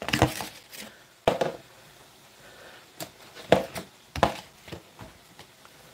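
Scattered light taps and knocks from handling a paper plate and utensils on a kitchen counter. There is one sharp click a little over a second in, then a cluster of short knocks a few seconds later.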